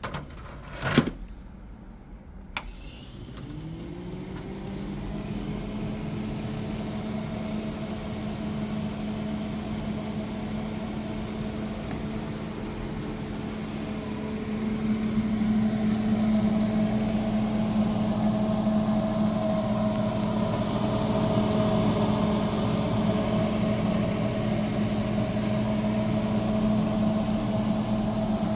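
Showcase refrigerator's motor, most likely its compressor, starting: a few sharp clicks, then about three seconds in it spins up and settles into a steady hum, which grows louder about halfway through.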